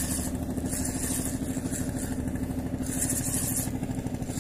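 A small engine running steadily at low speed, with a fast even throb.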